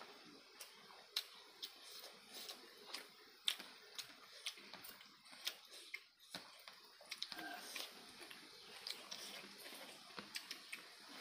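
People chewing rice and chicken curry close to the microphone, with mouth and lip smacks heard as irregular sharp clicks, several in a second at times.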